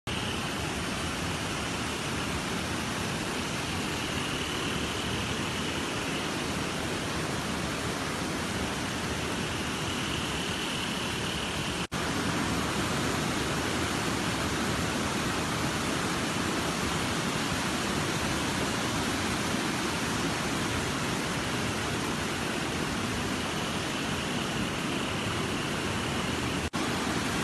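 Floodwater rushing steadily over a small dam's overflowing spillway and down a rocky channel, an even, unbroken noise of water, cut off for an instant twice where clips are joined.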